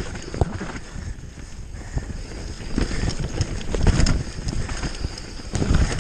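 Mountain bike descending a dry forest dirt trail at speed: tyres rumbling over dirt and roots and the bike rattling and clattering over the bumps, with wind on the microphone. Heavier thumps from bigger hits come about three to four seconds in and again near the end.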